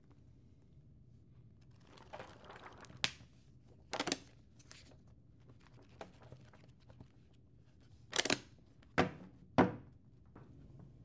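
A stack of copy paper being flexed and fanned: rustling and several sharp paper swishes, then two knocks about half a second apart near the end as the stack's edges are tapped square on the table.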